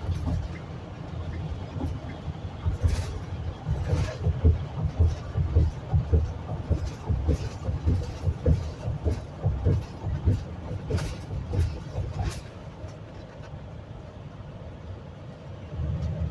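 Road noise of a vehicle being driven, with an irregular run of low thumps and a few sharp knocks and rattles as it rolls over the road surface. It settles into a quieter, steadier rumble about twelve seconds in.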